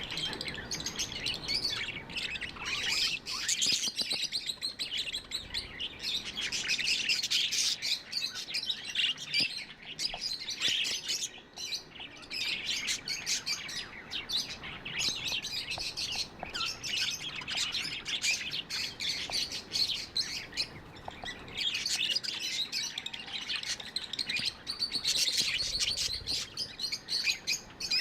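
Several budgerigars chirping continuously, their high calls overlapping in a steady chatter.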